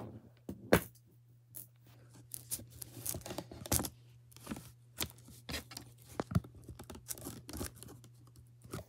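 Stiff plastic shrink-wrap around a stack of plastic dominoes being cut and torn at with scissors: irregular crinkles, snips and clicks. The wrap is tough enough to bend the scissors.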